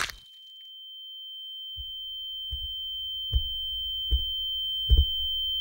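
A steady high-pitched ringing tone fades in and grows louder, the film effect of ringing ears after a blow to the head. Under it, dull low thuds like a slow heartbeat come about every 0.8 seconds, getting stronger.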